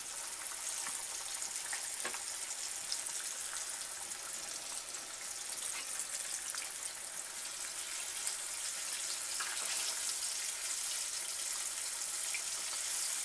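Starch-and-flour-coated chicken thigh pieces deep-frying in hot oil at about 170 °C, a steady sizzling hiss with fine crackles throughout, a little louder in the second half. This is the first of two fryings.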